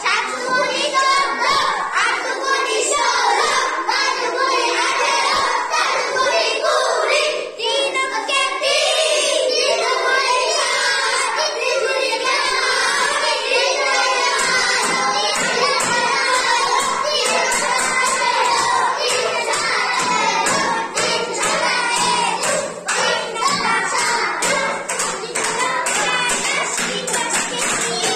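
A group of young schoolchildren singing together, many voices at once.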